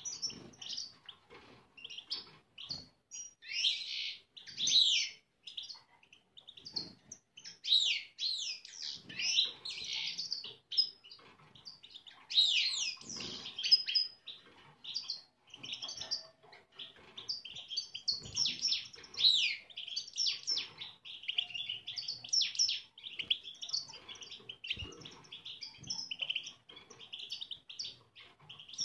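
Caged European goldfinches in breeding condition twittering and singing, a steady stream of quick, high chirps and trills.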